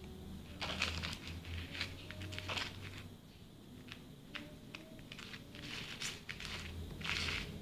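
Spoon stirring gritty, sand-laden slime in a plastic tub: irregular scraping and crackling strokes in bursts with short pauses. The strokes are busiest about a second in and again near the end.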